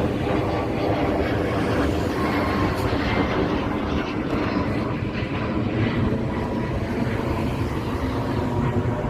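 Airliner taking off, its engines running at takeoff power: a steady, loud noise with no break.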